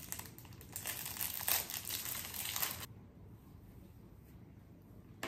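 Close crinkling and rustling handling noise with sharper crackles for about three seconds, then it stops.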